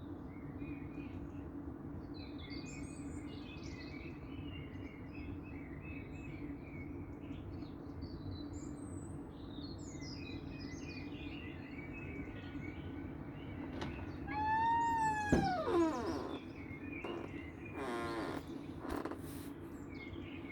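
Dawn chorus of many small birds chirping and twittering over a steady low hum. About fifteen seconds in, one louder call arches up and then falls steeply in pitch, followed by a few short rasping sounds.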